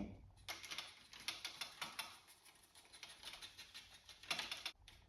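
Faint, irregular scratching and dabbing of a paintbrush working paint onto a model structure, with one louder stroke about four seconds in.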